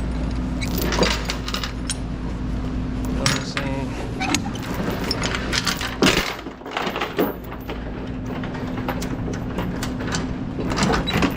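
Metal clinking and rattling of tie-down chain and hardware being handled while securing a load. A steady low hum sits under it for the first few seconds and then drops away.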